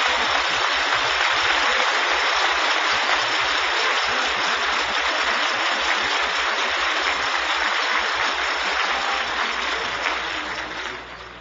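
Audience applauding steadily after a rousing line, the clapping dying down near the end.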